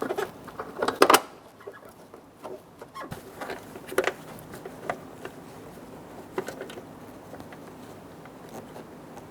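Scattered clicks and knocks of hinge bolts and hand tools being handled while a truck door hinge is bolted back on. A cluster of sharp ones comes about a second in, then a few more spaced out, fading by about seven seconds in.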